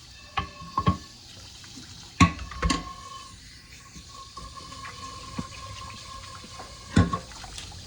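Kitchen tap running into the sink as vegetables are rinsed, with a faint steady whine over the flow and a few knocks of things handled at the sink, the sharpest about two seconds in and another near the end.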